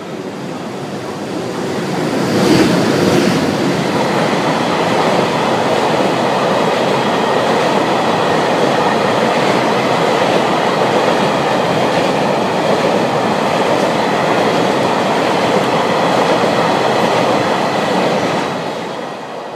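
A freight train hauled by a JR Freight EH200 electric locomotive passes at close range, followed by a long string of Taki 1000 tank cars rolling by. It grows louder over the first two seconds, stays steady and loud, and starts to fade near the end.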